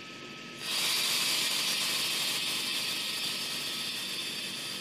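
A loud, steady hiss of compressed air venting from a stationary NSW V-set double-deck electric train as it readies to depart. The hiss starts suddenly under a second in and slowly eases off.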